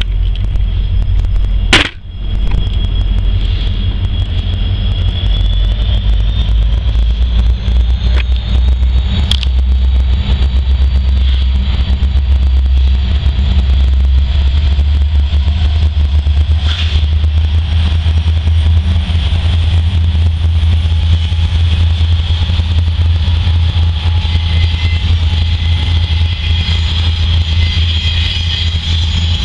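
Norfolk Southern diesel locomotives passing at the head of a double-stack intermodal freight train: a steady low engine rumble with wheel and rail noise. A sharp click comes about two seconds in.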